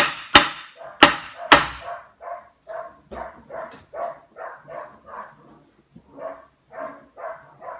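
Four hammer blows in the first second and a half, then a dog barking over and over, about three barks a second, with a short break about six seconds in.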